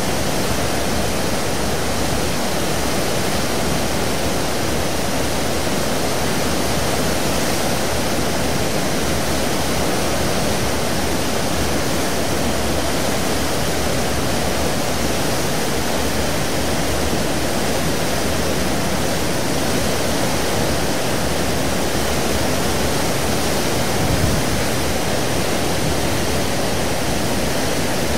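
Seawash churning in the wake at the stern of the 17,400-ton car ferry St. Nicholas, built 1980: a steady, unbroken rush of water with a low, even hum underneath. There is a brief low bump near the end.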